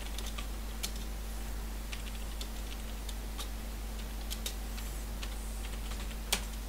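Computer keyboard keys clicking one at a time at an unhurried pace while a command is typed, with one louder keystroke about six seconds in. A steady low hum runs underneath.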